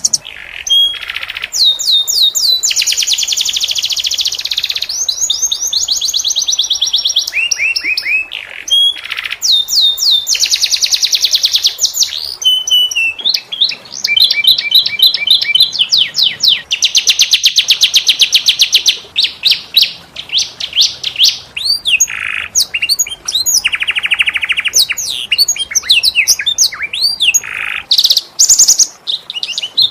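Domestic canary singing a long unbroken song of fast trills and rolls: series of rapidly repeated high notes, each series switching to a new note type and speed every second or two.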